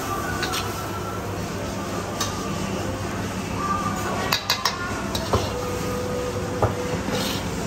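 Metal cooking utensils clinking against pots and pans at a street food stall. A quick cluster of sharp clinks comes a little past halfway and single clinks follow, over a steady background hum.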